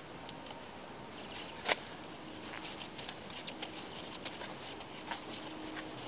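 Footsteps on a stony seaside path: irregular small clicks and taps over a steady hiss, with one sharper click about two seconds in.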